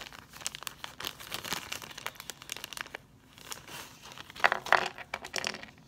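Crinkling of a small clear plastic parts bag being handled and opened, irregular and crackly, with a short lull about three seconds in and the loudest crinkling about four and a half seconds in.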